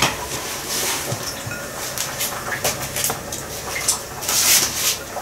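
Water running from a kitchen tap, with a loud spray of it about four and a half seconds in, and a few light knocks.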